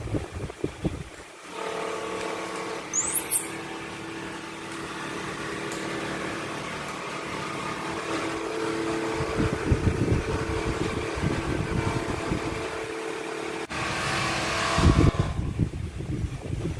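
Electric standing fan running: a steady motor hum, with air from the blades buffeting the microphone in gusts. A brief high squeak about three seconds in, and the hum stops abruptly near the end.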